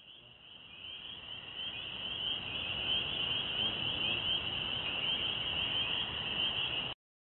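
FPV quadcopter in flight, heard from its onboard camera: a high steady motor whine over rushing wind and prop noise that builds for the first two or three seconds, then cuts off suddenly near the end.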